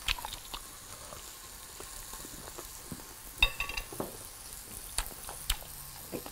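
Pork chops sizzling on a tabletop grill pan: a steady hiss with scattered sharp crackles and pops. About three and a half seconds in there is a short ringing clink.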